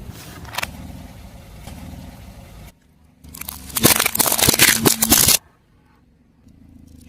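Car tyre rolling over and crushing something brittle: about two seconds of loud, dense crackling and crunching a few seconds in, after a low engine rumble from the slowly moving car.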